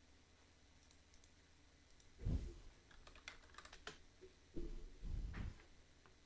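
Computer keyboard and mouse being used, with scattered light key clicks, and a few dull low thumps about two seconds in and again near the end, which are the loudest sounds.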